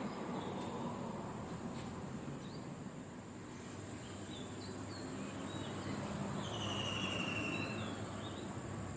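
Outdoor ambience: insects buzzing steadily at a high pitch, with scattered short bird chirps and a longer bird trill about two-thirds of the way through.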